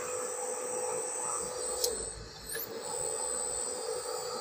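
Electric geared motor with a mechanical speed variator driving a belt conveyor, running with a steady hum and a thin high whine; a single click a little before the middle.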